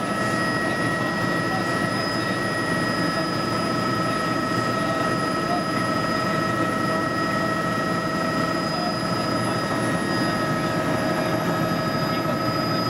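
Helicopter in flight, heard from inside the cabin: a steady drone of engine and rotor with constant whining tones over it.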